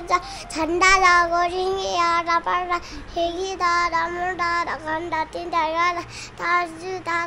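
A young girl singing a song in a high voice, in phrases of held, wavering notes with short breaks between them.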